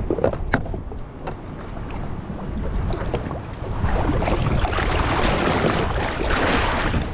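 Wind on the microphone with a few small clicks of hands working tackle, then from about four seconds in a louder rush of seawater washing up over the jet ski's side deck.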